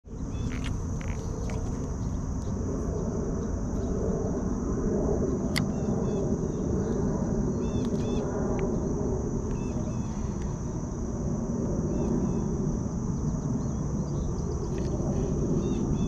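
Steady high-pitched insect chorus, typical of crickets, with birds chirping now and then over a low rumble. One sharp click comes about five and a half seconds in.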